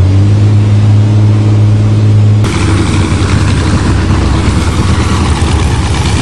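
School bus engine held flat out at steady high revs while pushing nose to nose against a pickup truck, heard from inside the bus as an unbroken drone. About two and a half seconds in it cuts to a rougher, noisier sound of engines straining at full throttle.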